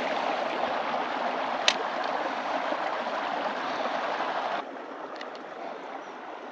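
Steady rushing of running creek water, with one sharp click about a second and a half in. The rushing drops off abruptly about two-thirds of the way through.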